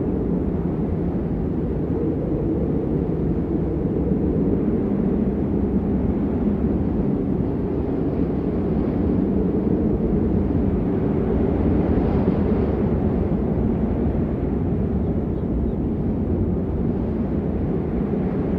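Steady rain as a constant, muffled, deep rush, with little high hiss.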